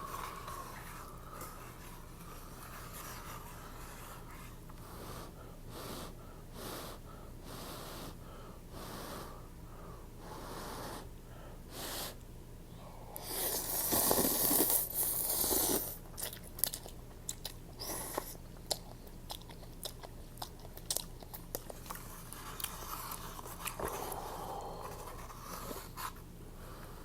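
Close-miked noodle eating: wet chewing and mouth smacks, a long loud slurp about halfway through, then quick, sharp chewing clicks.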